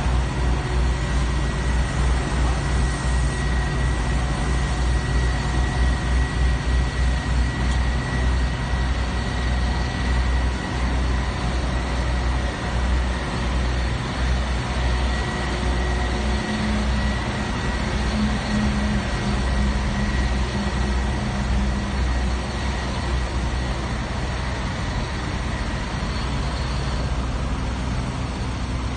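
Diesel machinery of a Sidewinder Shuttle material feeder and a mini asphalt paver running steadily while feeding asphalt, a low engine rumble with a steady high whine over it. A second, lower hum joins for several seconds past the middle.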